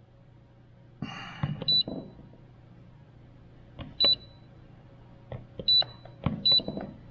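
Extech AN200 anemometer keypad beeping as its buttons are pressed: four short high beeps, each with a small button click, as the duct area is keyed in. A brief rustle of handling comes about a second in, over a low steady hum.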